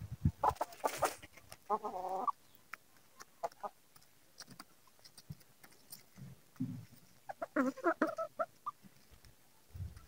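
Chickens clucking, with one drawn-out call about two seconds in and a burst of quick clucks near the end, and scattered light ticks in between.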